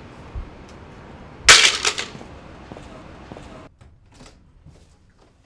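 A sudden loud crack about one and a half seconds in, followed by a quick clatter of a few more sharp hits within half a second, over a steady background hum that drops away near the end.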